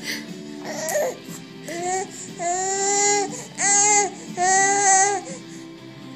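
A baby vocalizing: three drawn-out, high-pitched cry-like calls, one after another, in an attempt to make noises.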